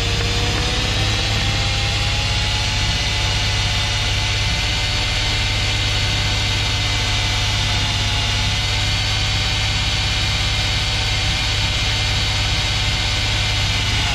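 Cordless drill running steadily as its bit cuts a bolt hole through the sheet-metal rocker flange of a 1999 Dodge Ram 2500. The motor whine wavers slightly in pitch, over a steady low hum.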